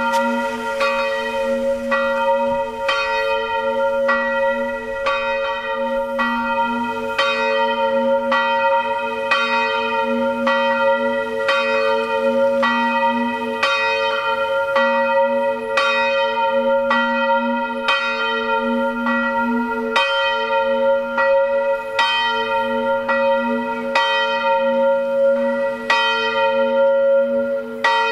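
Swinging church bells, a ring of five tuned to a diatonic scale on E-flat, pealing together: strikes fall about once a second while the deep tones of the bells ring on between them.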